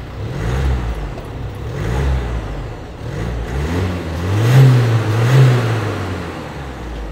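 Audi A5 Sportback 40 TDI's 2.0-litre four-cylinder turbodiesel idling and revved while standing: five short throttle blips, each rising and falling back to idle, the last two the loudest and highest.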